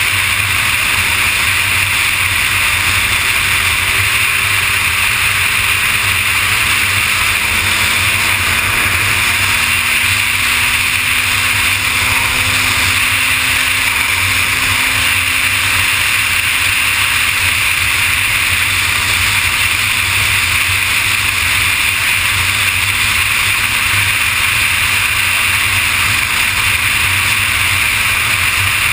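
Kawasaki ZX-6R sportbike riding at steady freeway speed. A constant rush of wind on the microphone and road noise covers the inline-four engine's hum, which rises slightly in pitch about a third of the way in.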